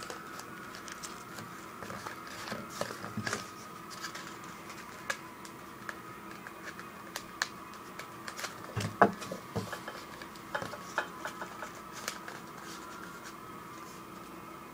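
Rolled-paper tubes being handled and set against each other: scattered light taps and rustles, the sharpest about nine seconds in, over a faint steady hum.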